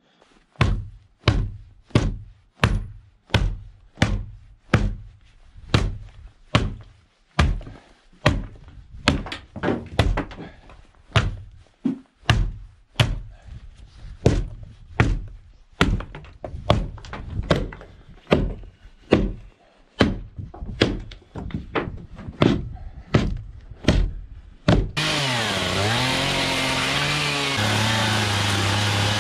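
Hammer knocking on wood in a steady run of sharp blows, about two a second, as something is hammered out. Near the end a power tool starts and runs steadily.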